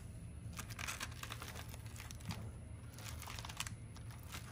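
A stack of loose asphalt roof shingles flipped through by hand, their gritty edges scraping and clicking against each other in a few short clusters.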